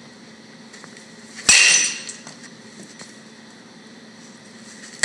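Baseball struck by a metal bat in batting practice: a sharp, ringing ping about a second and a half in that fades over half a second, and another hit right at the end.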